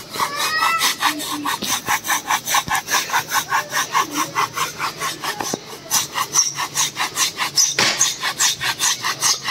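Hand saw cutting through a standing tree trunk near its base with quick, even back-and-forth strokes, about four to five a second. The cut is nearly through the trunk.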